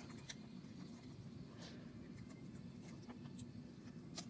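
Faint sticky crackles and small clicks of orange noise putty being squeezed and kneaded by hand, over a low steady hum.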